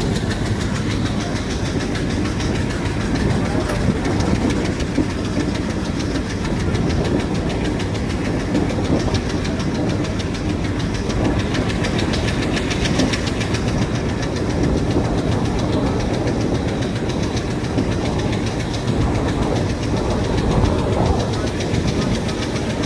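Passenger train running steadily at speed, heard from an open coach doorway: the wheels clatter over the rails under a continuous loud rumble.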